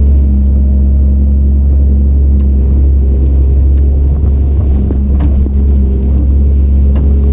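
Diesel engine of heavy earthmoving machinery running steadily with a deep, even rumble, with a couple of faint clicks over it.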